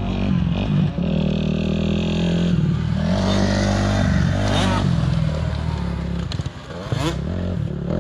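Motocross bike engines revving as the bikes ride the track, the pitch rising and falling as they accelerate and back off.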